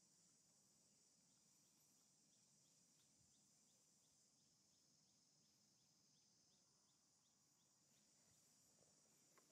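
Near silence: faint outdoor ambience with a steady high insect drone, and faint chirps a few times a second through the middle.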